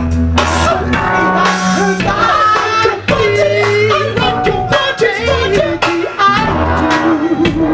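Live funk band playing, with a bass guitar holding low notes, drums keeping a steady beat, and a singer's voice sliding over the groove.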